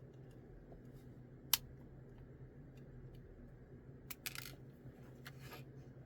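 Sprue cutters snipping a plastic miniature part off its sprue with one sharp click about a second and a half in, then a cluster of small plastic clicks and taps about four seconds in, over a faint steady hum.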